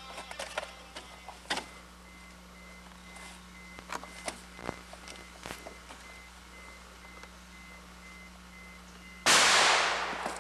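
Scattered light clanks and knocks of gear being handled in a car trunk, then about nine seconds in a single loud blast, a gunshot, that dies away over about a second.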